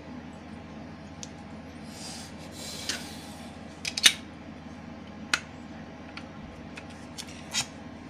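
Plastic top cover of a 12 V 7 Ah sealed lead-acid battery being handled and fitted back over the rubber cell caps: a scraping rub about two seconds in, then sharp plastic clicks and taps, the loudest about four seconds in.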